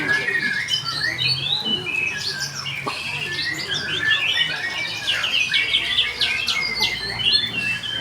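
Kept songbird, just out of its moult, chirping and twittering busily in quick, varied short notes with no pause.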